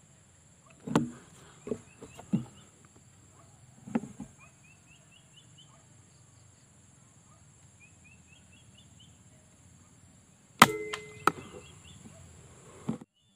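An air rifle fires once with a sharp crack about ten and a half seconds in, followed by a smaller click under a second later. Before the shot there are a few dull handling knocks and a small bird's short rising chirps in quick groups of four or five, over a faint steady high whine.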